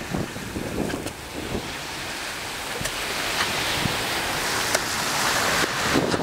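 Small surf waves washing up a sandy beach, with wind on the microphone. The noise grows slowly louder toward the end.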